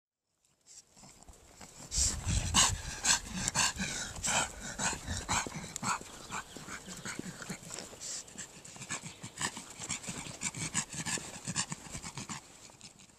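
A brachycephalic dog panting noisily in quick breaths, about two to three a second, faint at first and loud from about two seconds in. This is the obstructed breathing of brachycephalic obstructive airway syndrome, still present after corrective surgery.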